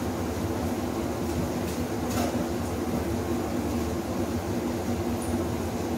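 Steady machine hum that does not change, with a low drone and a couple of fixed tones above it.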